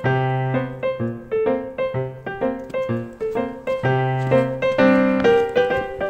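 Background piano music: a melody of struck notes over one higher note that keeps coming back.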